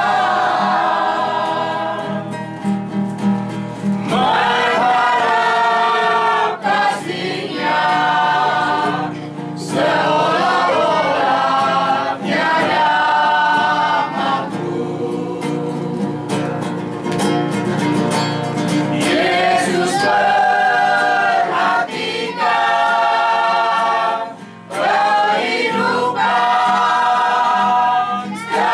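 Small mixed choir of men's and women's voices singing a hymn together, accompanied by a nylon-string classical guitar, with short breaks between sung phrases.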